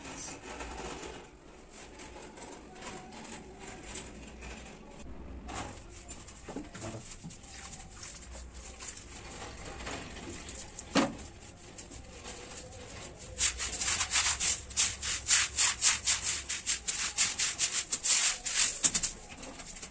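Bundled grass broom scrubbing across a wet concrete countertop slab in quick, rapid back-and-forth strokes, loud from about two-thirds of the way in. Before that there are only quiet handling sounds and a single knock.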